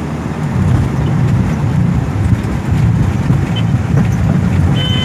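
Loud, steady low rumble inside the cabin of an air ambulance plane on the runway during an emergency landing, with the landing gear apparently failing. A steady high tone starts right at the end.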